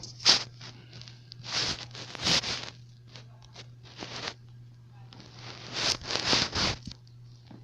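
Rustling and scraping handling noises from working on the laptop's screen assembly, in four or so short noisy bursts over a steady low hum.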